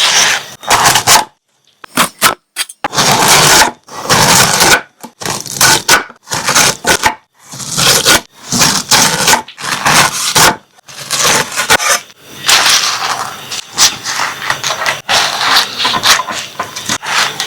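Sharp knife slicing through fresh pineapple: a run of crisp, crunchy cuts, some short and some drawn out, with brief gaps between them that grow fewer towards the end.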